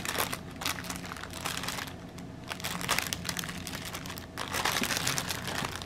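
Clear plastic bags crinkling as a hand sorts through small zip-lock bags of diamond painting drills inside a larger plastic bag: an irregular run of crackles and rustles.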